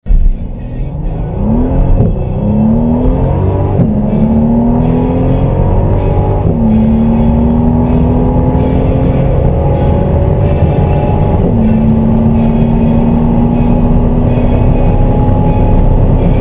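Mercedes SL 65 AMG's twin-turbo V12 at full-throttle acceleration from a standstill, heard from inside the cabin. The engine note climbs steadily through each gear and drops back at every upshift, with the shifts coming further apart as speed builds.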